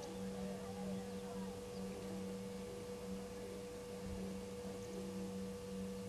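Steady electrical hum of two constant tones, one low and one higher, over the waterhole's faint ambience. Faint bird calls come in during the first second or so.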